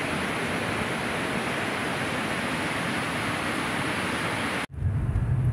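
River rapids rushing steadily, the whitewater running high with snowmelt. A little before the end it cuts off abruptly to the low rumble of a moving car.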